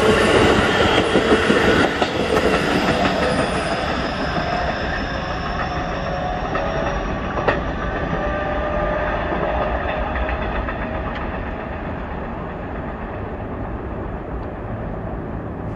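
Keikyū 2100-series electric train pulling away, with wheels running on the rails and a rising motor whine. It fades steadily as the train recedes.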